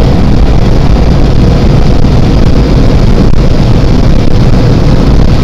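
Car driving at speed, heard from inside the cabin: steady, loud engine and road noise.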